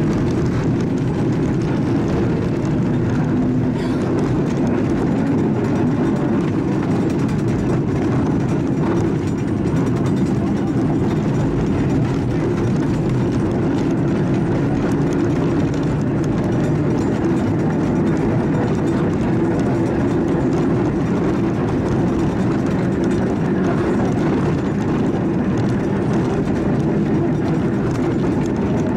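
Tram running along street track, heard from inside the car: a steady, even running noise of wheels on rail and the car's drive.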